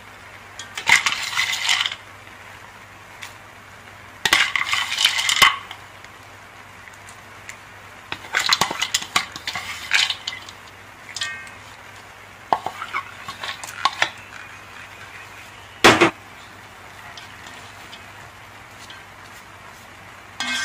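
Nuts, seeds and dried fruit dropped onto cooked rice in a non-stick pot, in several short rattling pours with small clinks, and one sharp knock on the pot a little after halfway. A plastic spatula starts stirring the rice near the end.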